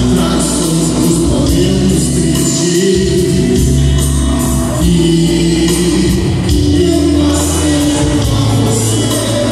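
Live band playing, with a man singing over drums and a steady beat.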